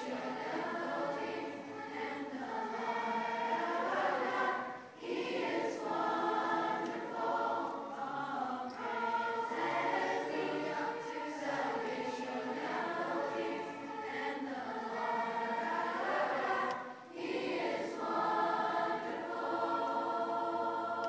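A large children's choir of boys and girls singing a hymn together, with many voices in harmony. The singing breaks off briefly between phrases about five and seventeen seconds in.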